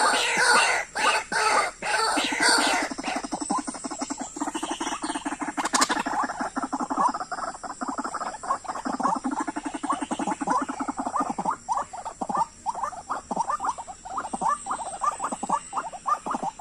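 White-breasted waterhen calling: a fast, unbroken series of harsh, grating notes, several a second, with rapid buzzy pulsing in places.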